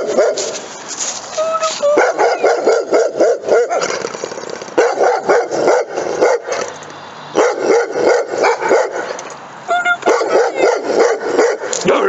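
Dogs barking repeatedly in fast volleys of short barks, with brief pauses between volleys. They are agitated, barking at a stranger who has come up to them.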